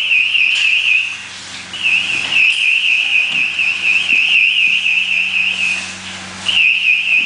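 A firefighter's PASS (personal alert safety system) alarm sounding a loud, high-pitched warbling tone, about four warbles a second, that drops out briefly twice. This is the distress alarm of a downed, motionless firefighter.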